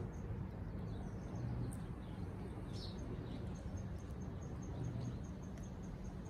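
Outdoor ambience: a steady low hum under a faint high chirp that repeats evenly about three times a second, with one brief, louder chirp about three seconds in.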